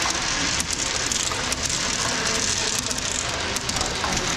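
Many pennies rolling around a large spiral coin funnel: a steady rolling rumble with scattered clicks as the coins knock together and drop into the centre.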